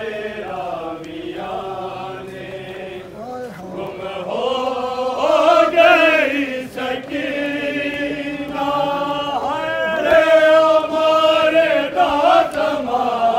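Men's voices chanting a Muharram mourning lament (nauha) for Hussain in long, drawn-out held notes, getting louder from about four seconds in.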